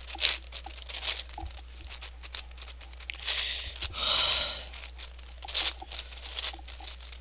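Plastic layers of a Yuxin 11x11x11 cube being turned by hand: a run of sharp clicks and clacks, with a longer scraping rattle of pieces sliding about three to four and a half seconds in.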